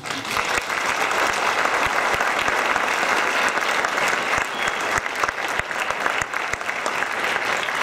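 Concert audience applauding steadily, many hand claps blending into one dense, even sound.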